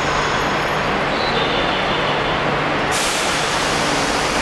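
Steady, loud vehicle rumble. A sudden hiss of released compressed air, like an air brake, starts about three seconds in and carries on.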